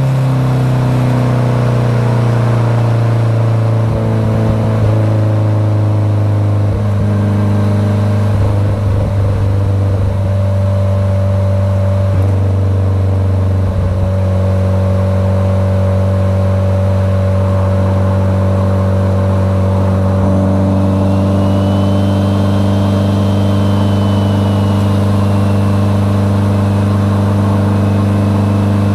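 Mitsubishi Lancer Evolution X GSR's big-turbo 2.0-litre turbocharged four-cylinder engine, heard from inside the cabin while driving. The engine note falls as the car eases off at first, then holds steady at cruising revs, with a few brief shifts in the note and light knocks in the first half.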